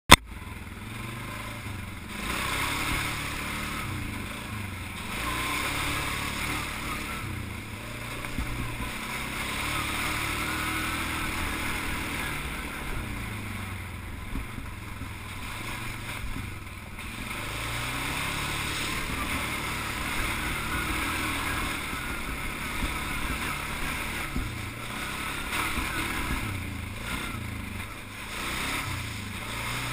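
Suzuki King Quad 500 ATV's single-cylinder engine running on a muddy trail, its pitch rising and falling as the throttle comes on and off, with a constant hiss of water and mud splashing under the tyres.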